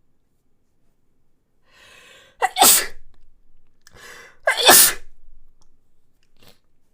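A person sneezing twice, about two seconds apart, each loud sneeze preceded by a drawn-in breath.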